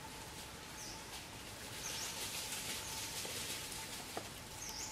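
Four short, high chirps about a second apart over a steady hiss of leaf rustle, with a couple of light clicks near the end.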